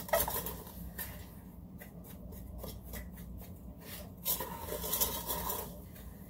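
Wooden spoon stirring a dry mix of sugar, clear gel and spices in a metal pot: a gritty scraping rustle in uneven strokes, loudest at the start and again for a second or so past the middle.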